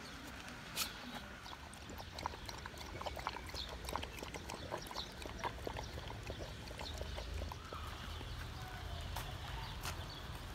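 A dog lapping from a small plastic cup: quick wet clicks of the tongue, about three a second, with a low rumble joining in the second half.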